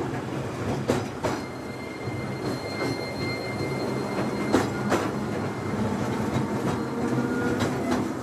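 Seaton Tramway narrow-gauge electric tram running along the track, heard from inside: a steady low hum and rumble, with a few sharp clicks and knocks from the wheels and a thin, high wheel squeal for a couple of seconds in the middle.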